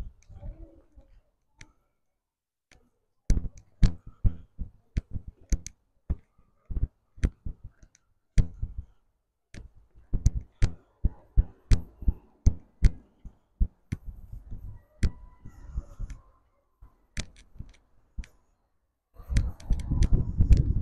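Footsteps on stone paving slabs, about two sharp clicking steps a second at a steady walking pace, stopping briefly now and then. Near the end a louder stretch of low rushing noise.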